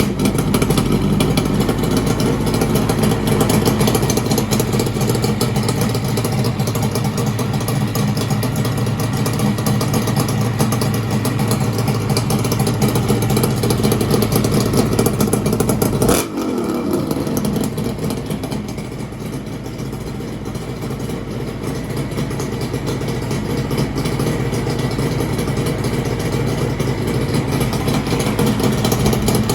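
Kawasaki KH400 air-cooled two-stroke three-cylinder engine running through iron expansion-chamber exhausts with silencers, held at raised revs. About sixteen seconds in, the revs drop with a falling pitch, then climb back up in the last few seconds.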